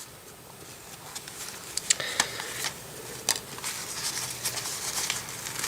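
Light rustling and scattered small clicks of plastic packaging being handled: a LEGO set's polybag and nylon drawstring bag being turned over in the hands.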